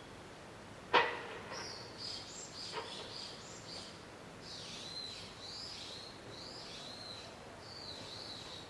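A songbird singing a run of quick, high, swooping notes in repeated phrases. About a second in there is one sharp, short knock-like sound, the loudest thing, with a fainter one near 3 s.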